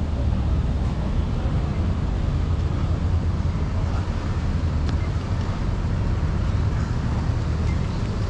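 Steady low outdoor rumble with no distinct event, the kind of noise that wind on the microphone and nearby street traffic make.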